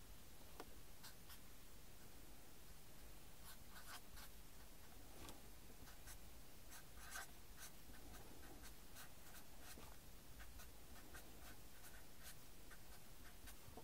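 Felt-tip permanent marker writing on paper: a faint, irregular run of short strokes and taps as letters and symbols are drawn.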